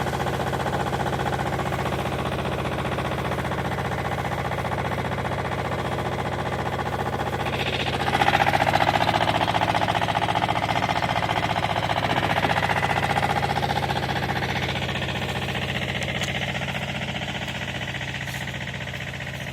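An engine running steadily. About eight seconds in it gets louder and a hissing noise joins it, then both ease off gradually.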